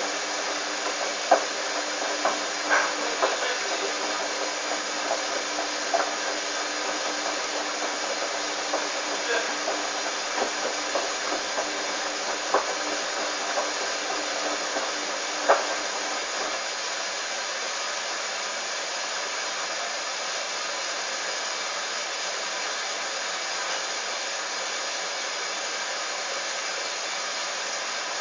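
Hoover Dynamic washing machine running: a steady whirring with several steady whining tones through it. Light clicks and knocks come every second or so for the first half, then stop.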